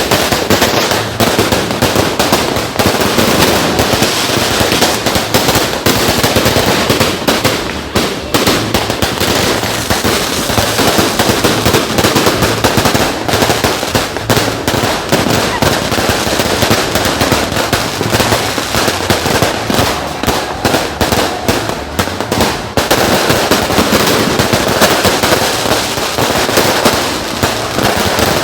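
Fireworks going off at close range: a dense, continuous barrage of cracks and bangs, briefly thinning about 23 seconds in before building again.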